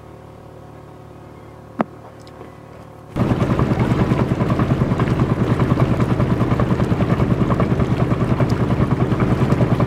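A motorboat under way, its engine running and water rushing along the hull, loud and steady with a fast throb. It cuts in suddenly about three seconds in, after a quiet hum and a single sharp click.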